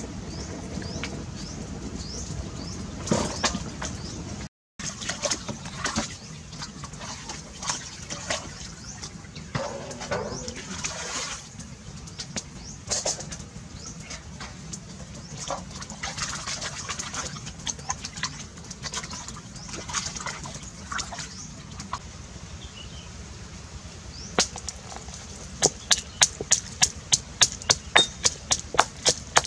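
Water splashing and sloshing in a steel basin as raw pork ribs are washed in a stream, with scattered clinks. About 25 seconds in, a stone mortar and pestle starts pounding garlic and red chilli: sharp, regular strikes, nearly four a second.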